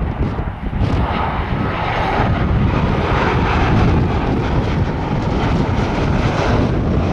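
Boeing 737 twin-engine jet airliner passing low on final approach, its engines a steady, loud rumble and hiss.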